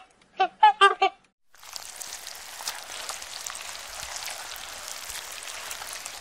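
A few short pitched animal calls in the first second, then a steady crackling hiss.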